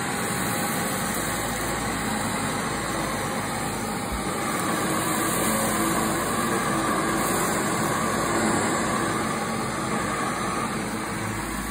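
Upright vacuum cleaner running steadily as its floor head is pushed over carpet, a little louder in the middle.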